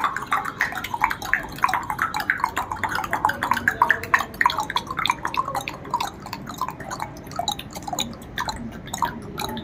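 A group of children imitating a duck with their mouths: many short quack-like sounds overlapping at a quick, uneven pace.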